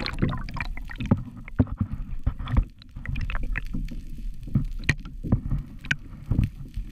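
Water sloshing and slapping against a fishing kayak's hull, with irregular knocks and a low steady rumble.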